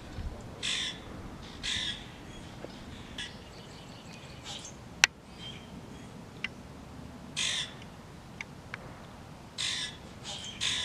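A bird gives five short, harsh calls, a second or more apart, over a steady outdoor background. A single sharp click, the loudest sound, comes about five seconds in.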